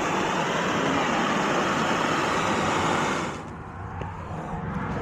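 A steady rushing hiss of gas released under pressure, starting sharply and cutting off a little over three seconds in.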